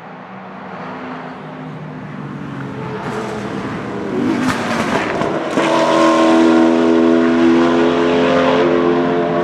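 Ford GT GT1 race car's V8 engine getting louder as it comes nearer, passing close about four to five seconds in. It then holds a loud, steady engine note at constant revs.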